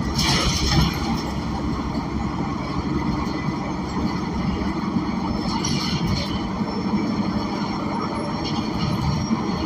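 Inside a Gillig BRT Plus transit bus under way: the Cummins Westport L9N natural-gas engine, Voith automatic transmission and road noise running steadily, with a short louder burst of noise right at the start.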